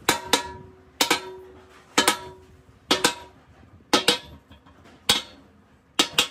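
Sledgehammer blows on a hand hammer held against the end of a steel truck axle tube, about one a second, some doubled in quick succession; each is a sharp metallic clang with a short ring.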